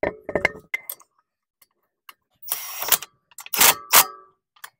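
Cordless impact wrench tightening a car wheel's lug nuts in a few short bursts, after metal clinks of the lug nuts being threaded on by hand in the first second.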